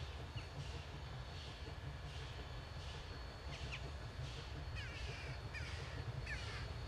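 Steam locomotive working slowly, its exhaust chuffing a little over once a second over a low, steady rumble. From about halfway through, a bird calls several times in short, falling notes.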